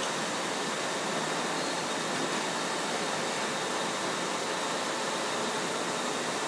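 Steady, even drone of a factory floor's running machines and ventilation, with faint steady whines above it.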